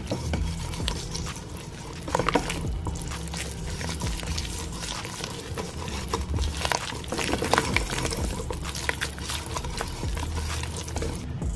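Wire whisk stirring flour into a wet, runny batter in a bowl: liquid sloshing and squelching, with repeated short clicks and scrapes of the wires against the bowl.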